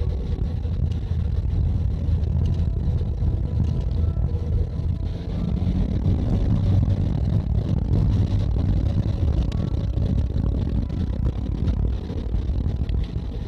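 Camper van driving, heard from inside the cab: a steady low engine and road rumble.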